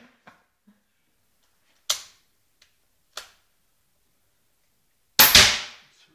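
Three air rifle shots, each a sharp crack. A strong one comes about two seconds in, a faint one about a second later, and the loudest comes near the end with a short echoing tail.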